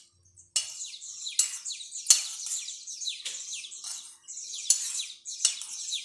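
A metal spoon scraping and clinking against a stainless steel bowl while mixing corn chaat, in a steady run of strokes, one or two a second.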